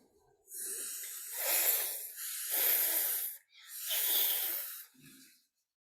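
A voice making the long hissing 'fff' letter sound for phonics practice, three times, each drawn out for about a second.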